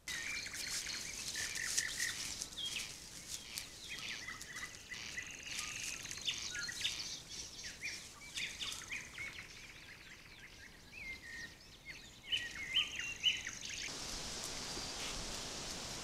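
Several birds chirping and trilling, with a thin steady high note, over faint background hiss. About fourteen seconds in the bird calls stop and an even hiss takes over.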